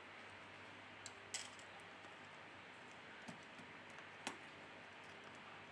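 A few light clicks of tweezers and small parts against a phone's motherboard and frame as the main camera connector is worked loose, over faint room hiss. The clearest clicks come just over a second in and about four seconds in.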